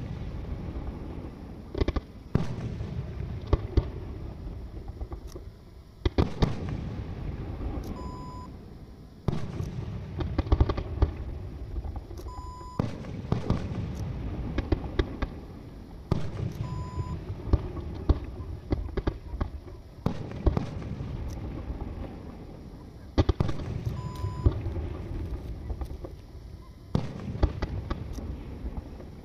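Aerial firework shells being launched and bursting: many sharp bangs, some in quick clusters, over a low rumble that swells and fades every few seconds.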